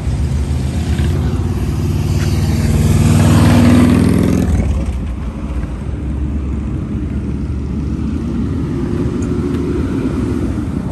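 A car going by close at hand, its engine note climbing as it accelerates and then dropping away about four and a half seconds in, followed by a steady traffic rumble.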